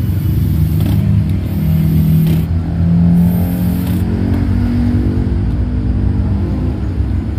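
A red JLD cordless drill running in short bursts as it drives screws into the blue plastic housing of a corded drill. Underneath is a steady low hum and a tone that rises slowly in pitch over the middle seconds.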